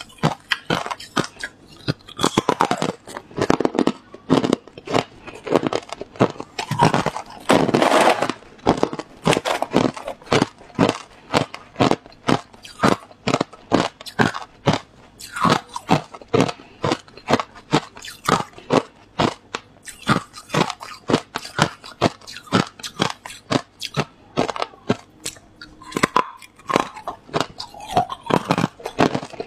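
Hard, clear ice chunks being bitten and crunched between the teeth: a dense, fast run of sharp cracks and crunches, several a second.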